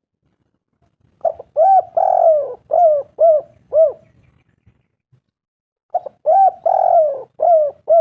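Spotted dove cooing: two phrases of about six arched coos each, the first starting about a second in and the second near the end.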